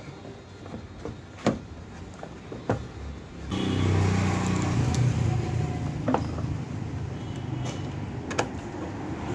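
Sharp clicks and knocks of a new scooter battery being seated in its plastic battery box and a screwdriver working the terminal screw. From about three and a half seconds in, a vehicle engine runs steadily in the background and is the loudest sound.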